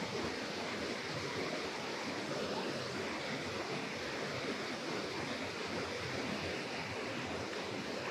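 River water pouring over a low dam spillway, a steady, even rush.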